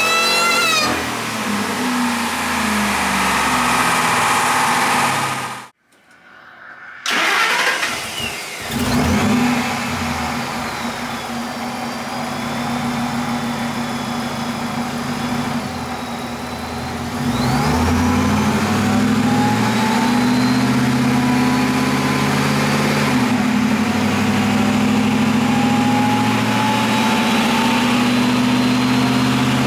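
Supercharged 5.4-litre V8 of a stock second-generation Ford SVT Lightning pickup on a chassis dyno. It climbs in pitch at the end of a full-throttle pull, cuts out abruptly about six seconds in, and runs unevenly at lower revs. From about eighteen seconds in it pulls again, its pitch rising steadily and loud to the end.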